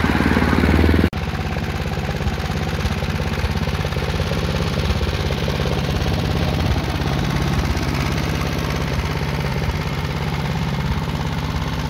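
Tecumseh 5 hp single-cylinder four-stroke engine on a 1963 Atco HD24 cylinder lawn mower, running steadily. It is a little louder for the first second, then dips briefly and settles to an even run.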